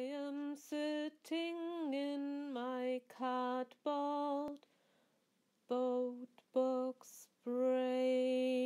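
A woman's voice singing alone, unaccompanied: a slow melody of held notes in short phrases with brief gaps between them, ending on a note held for about a second and a half.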